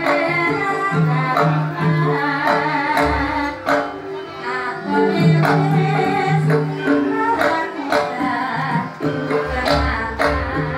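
Live Javanese dance music: hand drums and pitched percussion with a woman singing, marked by deep drum strokes.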